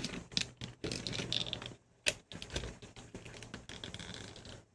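Small clicks, taps and scrapes of plastic camera parts being handled and pried at, with one sharp click about two seconds in, as the Sony DSC-F717's sticky, deteriorating rubber viewfinder eyecup is pulled off.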